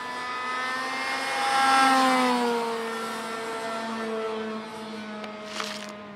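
Model airplane's .40-size two-stroke glow engine running at high throttle in flight. It is a steady buzz that grows louder to a peak about two seconds in, then drops slightly in pitch and fades a little as the plane passes and moves off. There is a brief rustle near the end.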